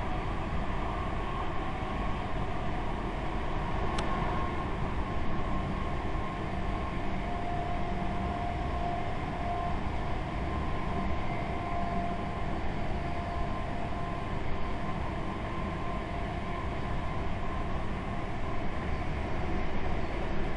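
Electric passenger train running along the line, heard from inside the carriage: a steady rumble of wheels on track with a faint whine that drifts slightly in pitch. A single sharp click about four seconds in.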